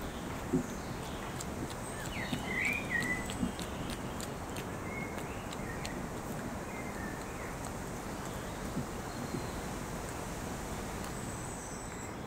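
Steady wind noise on the microphone, with a scatter of sharp clicks from a European badger cub crunching peanuts. A bird chirps a few short calls about two seconds in and again a few seconds later.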